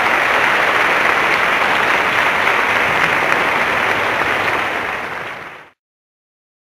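Large audience applauding steadily, a dense sound of many hands clapping, which cuts off suddenly near the end.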